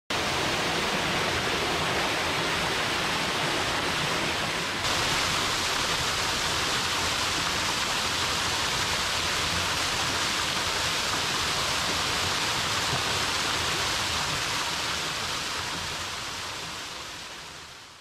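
Waterfall: many streams of water pouring off a stone wall and a cascade into a pool, rushing steadily, then fading out over the last few seconds.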